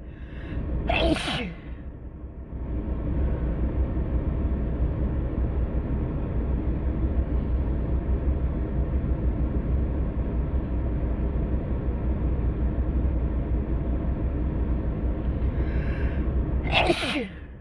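A person sneezing: one sharp sneeze about a second in and another near the end. Between them a steady low rumble runs.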